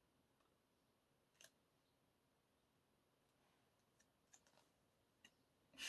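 Near silence with a few faint, scattered clicks and taps, and a louder click right at the end.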